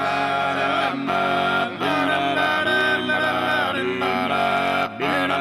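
Music of several voices singing long held chords in close harmony over a steady low drone. The phrases break off briefly about a second in and again near the end.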